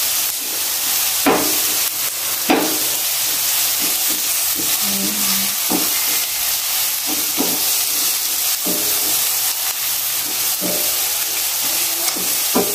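Chopped onion and garlic sizzling in hot oil in a nonstick frying pan, with a spatula scraping and knocking against the pan every second or two as they are stirred.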